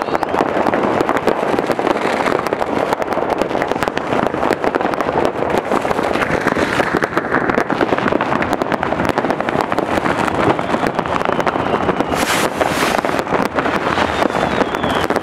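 Dense, unbroken crackle and bangs of many New Year's Eve fireworks and firecrackers going off at once, with a sharper, louder burst of crackling about twelve seconds in.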